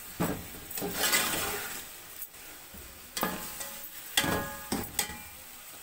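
Long slotted metal spoon stirring and scraping a masala of onions, tomatoes and spices frying in oil in an aluminium pot, over a low sizzle. It gives irregular scrapes and knocks against the pot.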